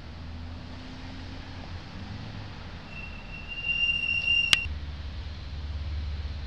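Street traffic rumbling steadily. About three seconds in, a high, steady squeal rises and grows louder, then stops at a sharp click about a second and a half later, where the recording breaks off and resumes on a new shot.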